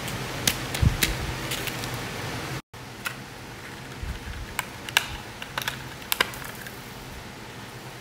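Clear plastic SSD case clicking and snapping as it is handled and opened and the M.2 drive is taken out: about ten sharp plastic clicks, scattered, over a steady background hiss and hum. The sound drops out completely for a moment a little over halfway through the first third.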